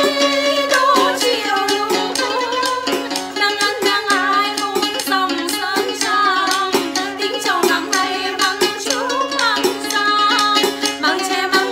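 Background music: plucked strings and sharp percussive rattles over a steady held low note, with a wavering melody on top.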